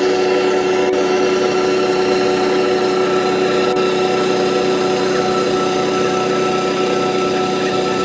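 Small rice combine harvester's engine running at a steady, even speed while it harvests.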